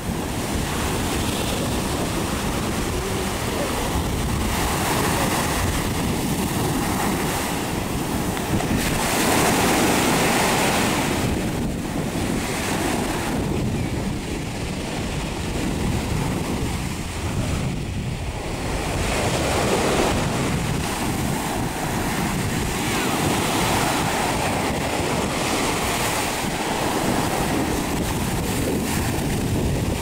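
Small waves breaking and washing up a sandy beach, the surf swelling and easing in turn, with wind rumbling on the microphone.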